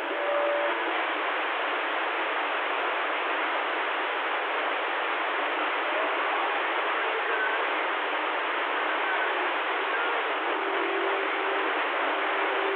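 CB radio receiver hissing with open-band static between transmissions, a steady even rush squeezed into the radio's narrow audio band. A faint low steady whistle, like a carrier heterodyne, comes in near the end.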